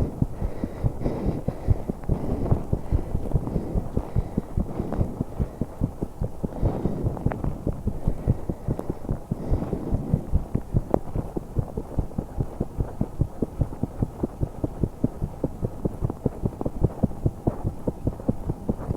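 A woman's heartbeat picked up through the chest during exercise, beating fast and evenly. Heavy breathing sounds over it in the first half, then mostly fade as she holds her breath.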